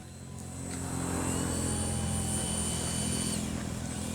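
Radio-controlled model airplane flying, its motor and propeller giving a steady high-pitched drone that grows louder, then drops in pitch near the end as it passes.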